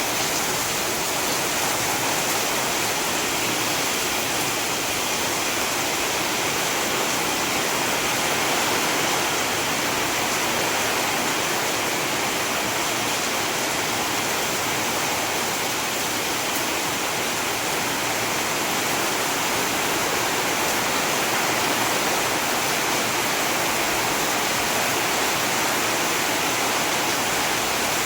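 Heavy rain falling steadily, a dense, even hiss without separate drops standing out.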